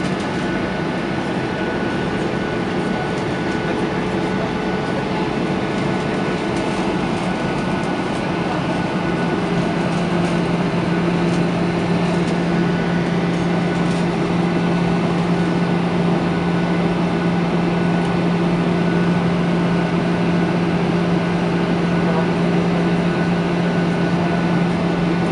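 Steady cabin noise of a Boeing 737-800 in cruise flight, heard from a window seat over the wing: the rush of air past the fuselage and the drone of its CFM56 engines. A low hum in the drone grows stronger about nine seconds in.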